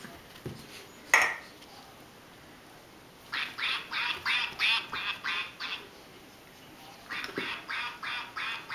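A dog's squeaky toy squeaking in quick runs of about four squeaks a second as a basenji chews it: one run in the middle, another starting near the end. One short, sharp, loud sound about a second in.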